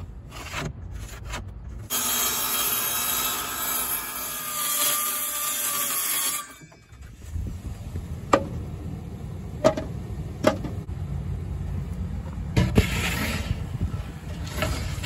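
Portable circular saw cutting through a sheet of plywood for about four seconds, with a steady whine under the cutting noise, then stopping abruptly. After it come several sharp knocks as the cut plywood pieces are handled.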